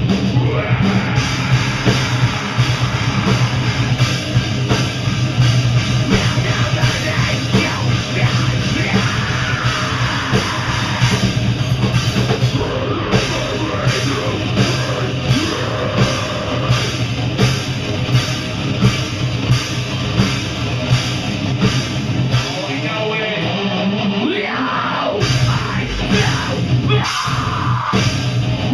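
A live heavy rock band playing loud, with electric guitar, bass and a drum kit. About three-quarters of the way through, the bass and kick drum drop out for a couple of seconds, then the full band comes back in.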